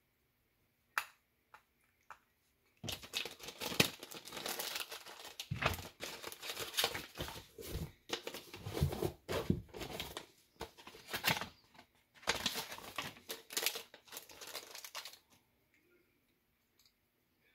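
A single click about a second in, then crinkling and rustling from a small plastic zip-lock bag and paper coin envelopes being handled, in dense bursts for about twelve seconds with a short pause partway through.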